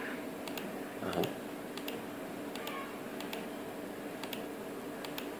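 Quiet room tone: a steady low hum with faint light ticks about once a second, and a brief vocal sound about a second in.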